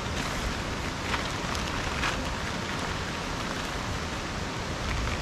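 A few brief rustles of nylon tent fabric being folded and pressed down by hand, over a steady rushing background noise.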